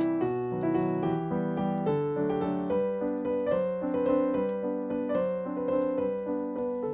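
Background piano music: a gentle melody of single notes over chords.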